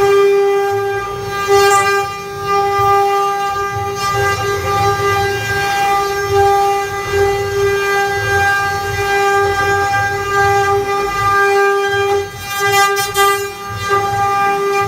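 Multi-head CNC wood carving router running, its spindles giving a steady high whine, with a fluctuating low rumble underneath and a brief rise in noise about a second and a half in and again near the end.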